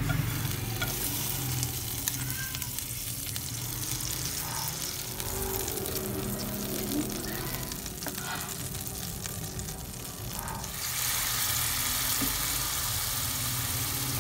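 Butter sizzling in a frying pan as it melts and foams, over a low hum. About eleven seconds in the sizzle turns louder and stays up, as diced raw chicken breast goes into the hot butter.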